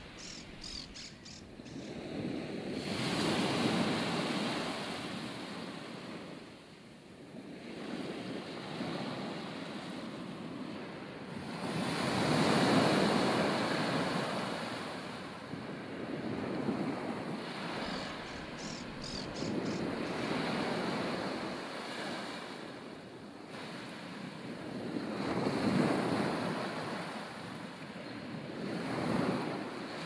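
Sea waves breaking and washing ashore in slow swells every few seconds, with wind. A short run of high chirps comes about a second in and again about two-thirds of the way through.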